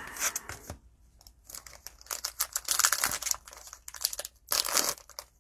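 Cellophane wrapper of a 2020 Mosaic NFL football cello pack crinkling and tearing as it is opened by hand, in several short bursts.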